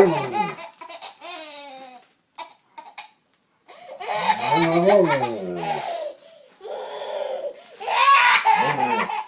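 Baby laughing in repeated bouts of hearty belly laughs, with a short pause about two seconds in.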